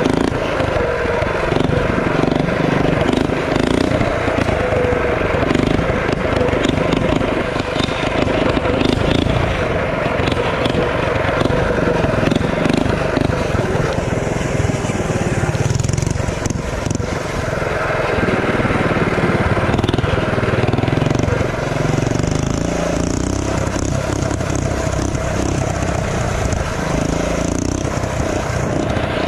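Mini bike's small engine running steadily as the bike is ridden, heard through a GoPro on the bike.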